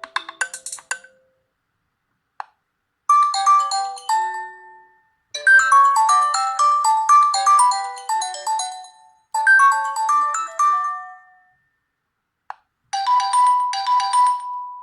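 Nokia G20 stock ringtones playing one after another as melodic phrases of electronic notes. One tone ends about a second in, and a short click comes just before each new tone starts. The next tone plays in repeated phrases from about three seconds in to about eleven seconds, and another begins near the end.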